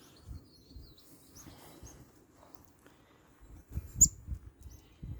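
Small songbirds chirping faintly with short high calls, while wind rumbles on the microphone. A sharp, louder click-like chirp stands out about four seconds in.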